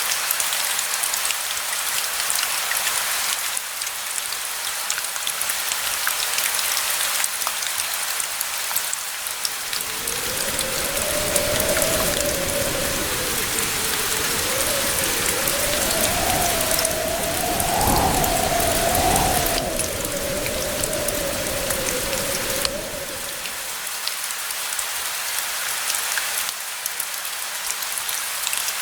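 Steady rain, an even hiss with fine pattering drops. About a third of the way in, a low roll of distant thunder rumbles up, swells to its loudest a little past the middle and dies away some thirteen seconds after it began.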